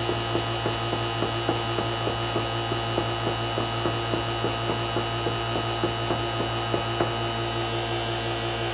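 Electric vacuum pump running steadily, pulling vacuum on an investing table that holds two flasks of freshly poured investment. Over the hum comes a rapid light knocking, about four or five times a second, as the table is bounced up and down to help the air bubbles rise out of the investment; the knocking stops about seven seconds in.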